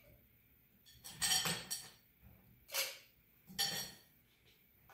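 Ice cubes dropped into a tall drinking glass, several sharp clinks of ice on glass about a second apart.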